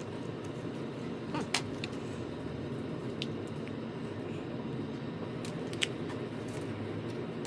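Scattered small clicks and taps of tools and small parts being handled on a phone, over a steady low hum.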